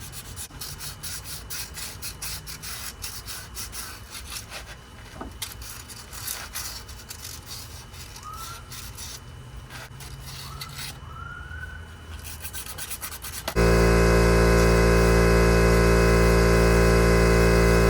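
Quick scrubbing strokes scraping corrosion out of the wheel-hub bore. About 13 seconds in, an air compressor kicks on abruptly and runs loud and steady, refilling its tank after being blown down.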